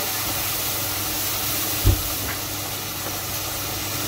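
Oil sizzling steadily in a frying pan, with a single dull low thump about two seconds in.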